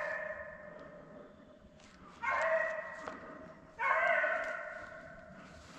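Deer hounds baying on a running deer's trail: three long, drawn-out bays that each fade away, the sound of the pack in full cry chasing a doe.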